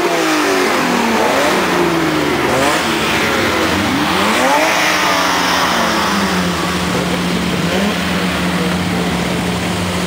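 BMW E30 car engines revving: several quick rises and falls in pitch over the first half, then a steady engine note holding on.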